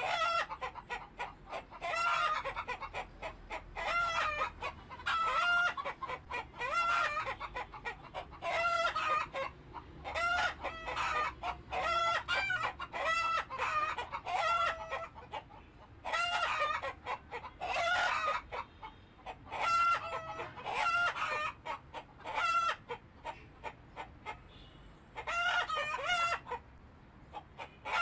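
Chickens calling over and over, short wavering calls coming every second or two with a brief pause near the end.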